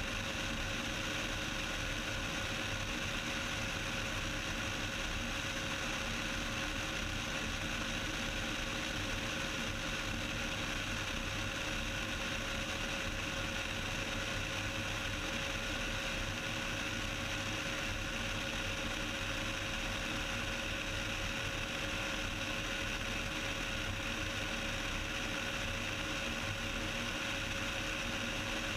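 Cessna 172's piston engine and propeller running steadily in level flight: an even, unbroken drone with a few steady tones.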